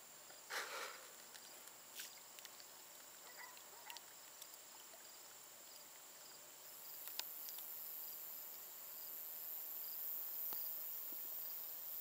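Faint, steady high-pitched insect trilling, with a second higher trill joining about two-thirds of the way through. Over it come a few brief soft splashes and pops of small bluegill feeding at the pond surface, the loudest about half a second in.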